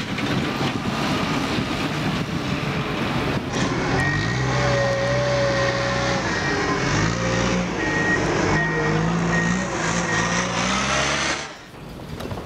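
Heavy truck's diesel engine running and revving while it manoeuvres, with a reversing alarm beeping in short repeated high tones from about a third of the way in. The engine noise drops away suddenly near the end.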